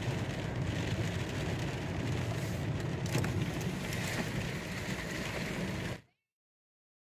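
Steady running noise of a car driving slowly through deep floodwater in heavy rain, heard from inside the cabin, with a low rumble and rain on the windshield. It cuts off suddenly about six seconds in.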